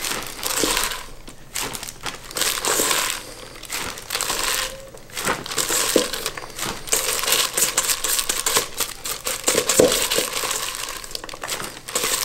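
Plastic zip-top bag and disposable plastic glove crinkling in irregular bursts while chopped green onions are scooped by hand from a stainless steel bowl into the bag, with a few light knocks against the bowl.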